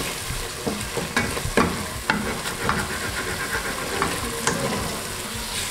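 Wooden spoon stirring and scraping a thick frying paste of meat, onions and tomato puree around a stainless steel pot, over a steady sizzle, with irregular scrapes and light knocks against the pot.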